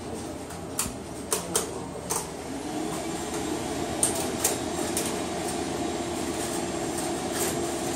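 Relay and switch clicks from No. 1 crossbar telephone switching equipment as an automatic test is set running from its master test centre: a handful of sharp, irregular clicks over a steady equipment hum. About two and a half seconds in, a steady whirring tone comes up and holds.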